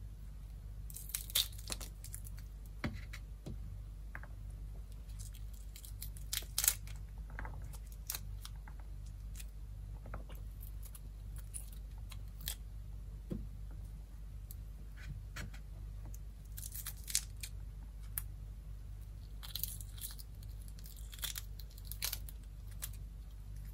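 Pomegranate being broken apart by hand: irregular small crackles and snaps as the peel and pith are torn and the seeds prised loose onto a wooden cutting board, over a low steady hum.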